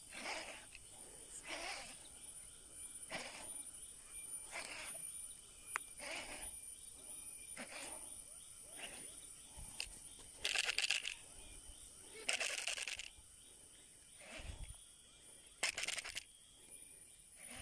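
Retrieve of a topwater lure on a baitcasting outfit: short swishing bursts of reel winding and lure work, about one every second and a half. Two longer, louder bursts come near the middle.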